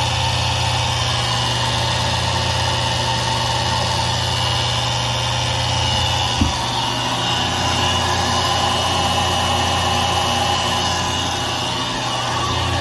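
Maple sap vacuum pump running steadily with a loud, even hum, pulling about 24 inches of vacuum on the sap lines. A single brief knock sounds about halfway through.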